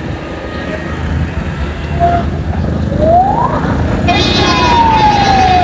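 Road and engine noise from riding in traffic, with a loud siren-like wail near the end: a tone sweeps up about three seconds in, then from about four seconds a strong tone glides slowly down in pitch.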